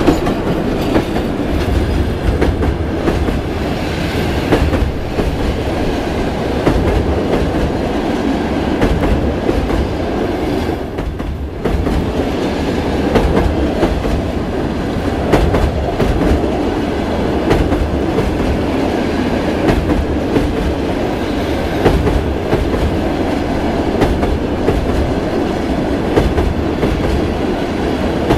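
Passenger train hauled by a ChS2K electric locomotive passing close by at speed. The coaches' wheels make a steady loud rumble with rhythmic clicking over the rail joints, and there is a short lull about eleven seconds in.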